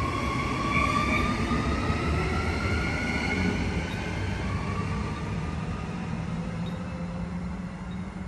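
Brisbane electric suburban train running, with a low rumble and a motor whine that slowly rises in pitch, typical of a train gathering speed. The sound eases off toward the end.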